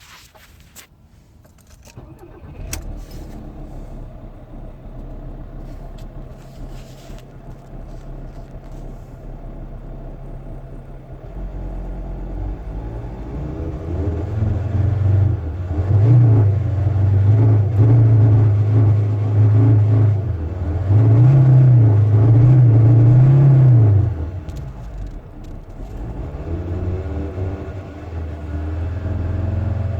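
VW T5's 2.5 TDI five-cylinder diesel (AXD) running and being pushed on, its note wavering and surging unevenly for several seconds, then dropping off sharply before building again. This is the rough, hesitant misfiring of a warm engine, which the owner traced to a failing crankshaft position sensor.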